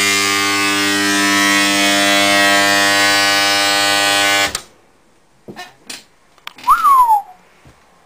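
Two microwave oven transformers of a homemade arc welder buzzing loudly under heavy load, the electrode leads shorted through a bicycle spoke in tap water. The harsh, nasty mains buzz is steady and cuts off suddenly about four and a half seconds in. A few faint clicks and a short falling whistle follow near the end.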